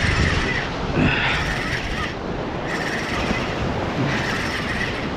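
Wind buffeting the microphone over the steady wash of ocean surf against the rocks.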